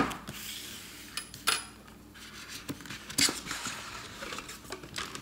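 Cardboard gift-style box being opened by hand: the lid rubbing and sliding up off the base, with several sharp knocks and scrapes, the loudest about three seconds in.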